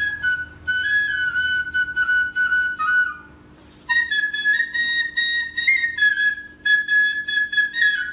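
Background music: a solo flute playing a slow melody, with a short pause about three seconds in.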